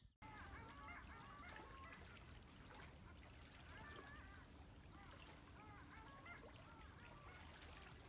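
A distant flock of long-tailed ducks calling on open water: many faint, overlapping short calls, each rising and falling in pitch.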